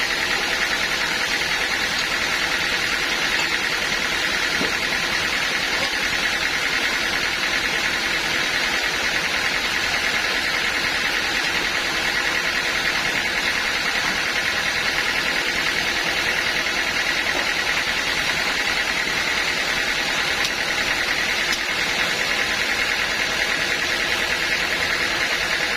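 Sawmill machinery running with a steady, unbroken mechanical noise and a constant high hiss.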